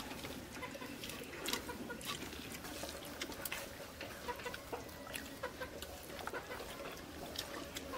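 Chickens clucking on and off, mixed with short wet clicks and smacks of people eating with their hands and chewing.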